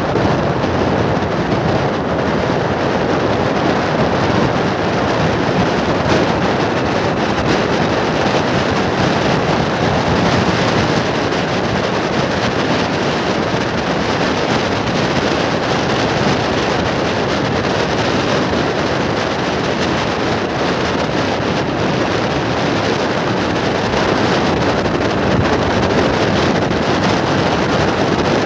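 Steady wind rush over the microphone, mixed with the road and running noise of a vehicle driving at speed on open highway.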